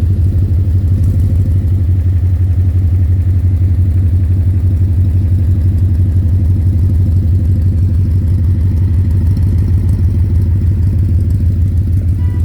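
2010 Ford Mustang GT's 4.6-litre V8 running steadily at idle with a rapid knocking in its note. The owner suspects a loose torque converter and has been told it could be rod knock or lifter tick.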